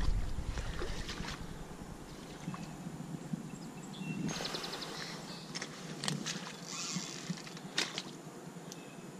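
Spinning reel clicking in rapid runs while the rod is under load from a hooked fish, with scattered handling knocks. The main run of clicks comes about four seconds in, and a shorter one about three seconds later.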